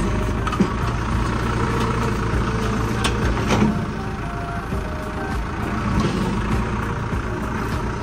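Engine of a heavy vehicle running steadily at low speed, with a louder knock a little after three seconds in.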